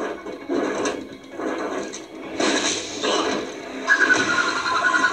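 Sound effects from a TV action scene: a series of noisy rushes and hits, then a high, wavering electronic tone for about a second near the end that cuts off sharply.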